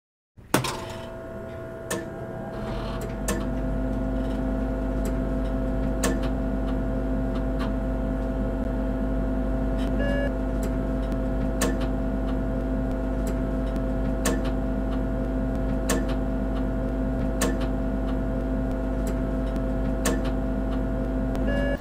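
A steady machine hum with a low drone and several held tones, starting suddenly and settling after about three seconds. Over it, a single sharp click about every second and a half, one for each letter as a title is typed out.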